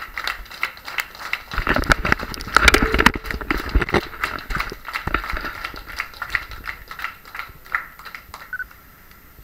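A small group clapping in applause, with a few low thumps of the handheld camera being moved about two to four seconds in; the clapping thins out and stops shortly before the end.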